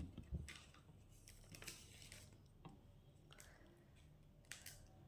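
Near silence: room tone, with a soft low thump at the very start and another just after, then a few faint brief rustles.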